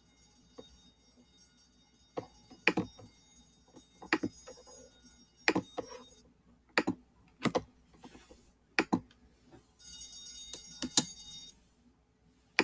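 A dozen or more sharp clicks and taps at irregular intervals, like objects being handled or keys pressed. A faint high-pitched electronic whine comes and goes behind them.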